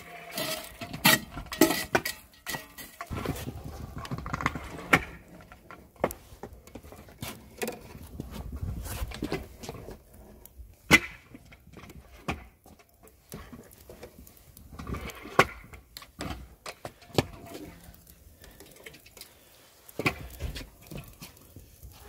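Charcoal being raked with a metal poker in a steel mangal, then steel kebab skewers set down across its rim: many irregular metallic clinks, knocks and scrapes.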